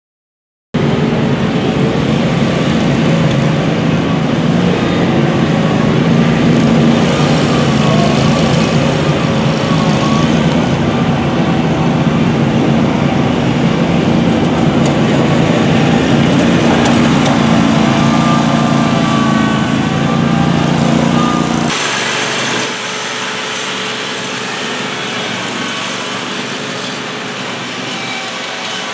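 Zero-turn riding mower's engine running steadily, with a faint wavering whine over it. About 22 s in, the sound cuts abruptly to a quieter, thinner engine sound.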